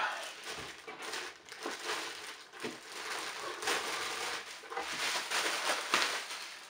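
Clear plastic bag crinkling and rustling in irregular crackles as hands pull it off a boxed RC car.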